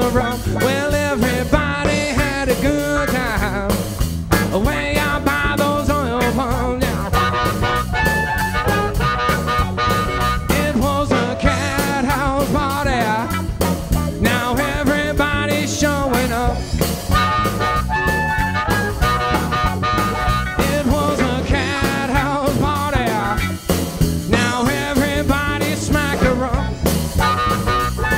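Blues-rock band playing an instrumental break: electric guitar, bass guitar and drums with a steady beat. A harmonica is played into the vocal microphone near the end.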